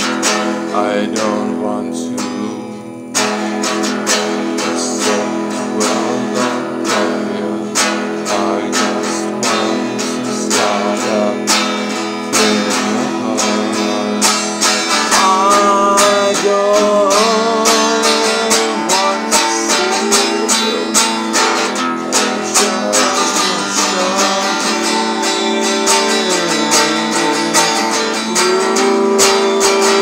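A man singing while strumming an acoustic guitar in a steady rhythm.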